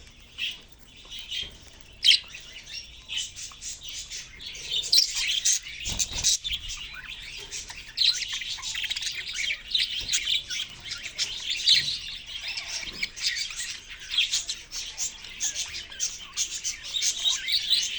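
A flock of caged budgerigars chirping and warbling: a busy run of short, quick chirps that grows denser and more continuous after the first few seconds.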